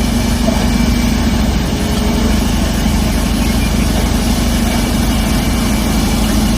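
Bulldozer engine running steadily at an even pitch, with a deep rumble under a constant hum.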